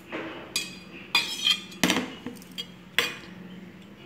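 Steel spoon clinking against stainless steel bowls, a handful of sharp clinks with a short metallic ring, the loudest about two seconds in.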